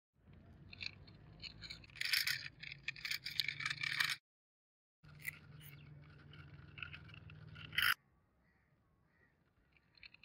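Gritty scraping and crunching on a rough concrete floor, with many small clicks, loudest about two to four seconds in. It cuts out suddenly for about a second just after four seconds, resumes, and falls almost quiet after about eight seconds.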